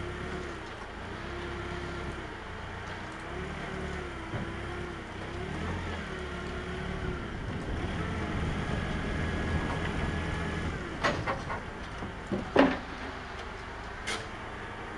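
Vehicle engine running steadily at low speed with a wavering whine over it, dying away about eleven seconds in. Then a few sharp metallic clanks follow, the loudest about twelve and a half seconds in.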